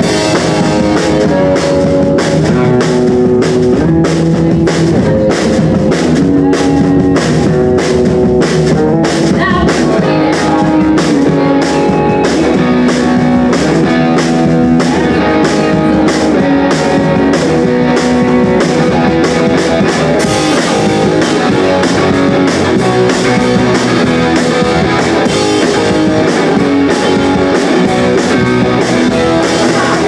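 Live rock band playing loud: electric guitar, bass guitar and drum kit over a steady drum beat.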